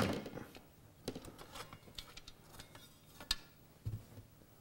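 The end cover of a Mars permanent-magnet DC motor being worked loose and lifted off by hand: faint scattered clicks and scrapes, with a click as it starts, a sharper click about three seconds in and a low knock just after.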